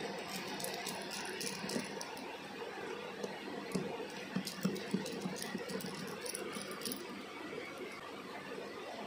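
Small precision screwdriver turning tiny screws out of an action camera's metal shield, with light irregular clicks and ticks of metal and plastic being handled, over a faint steady hiss.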